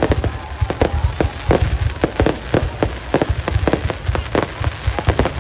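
Fireworks display going off in a rapid, irregular run of bangs and pops, several a second, over a low rumble.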